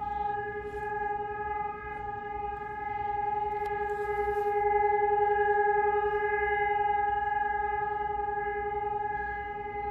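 Electronic civil-defence sirens (Sonus HES 600) sounding a steady, unwavering tone with a slight swell and fall in loudness: the one-minute continuous all-clear (Entwarnung) test signal.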